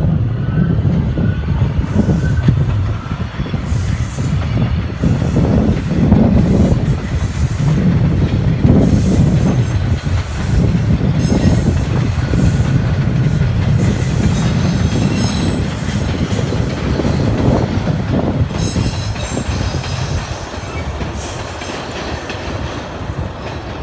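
A TTC subway train running past on open track, a loud rumble of wheels on rails that swells and eases. High-pitched wheel squeal joins in the second half.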